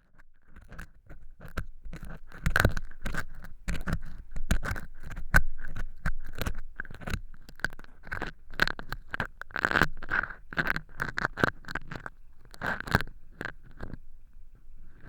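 An earpick scraping and crackling against dry fake earwax made of cork chips inside a transparent ear tube, close to the microphone. It makes irregular, strong crunchy scratches over a faint steady tone, and goes quiet about a second before the end.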